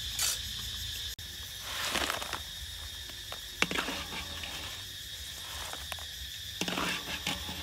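Crickets chirring steadily, with a few short clatters and scrapes from fried taro pieces being tipped from a wire strainer into a woven bamboo basket; the sharpest clatter comes about halfway through.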